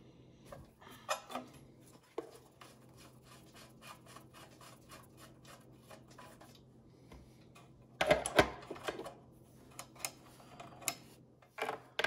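Small clicks and rubbing of a wrench working a metal line fitting on an air compressor as it is loosened, with a louder cluster of knocks about two-thirds of the way through.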